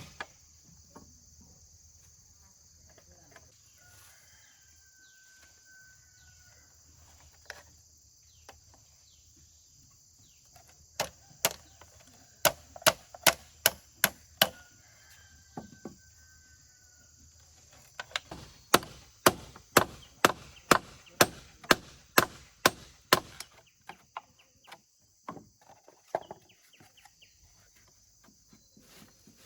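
Runs of sharp chopping or hammering strikes, about two a second, in two bursts a few seconds apart. A rooster crows twice in the quieter stretches, each crow held about a second and a half.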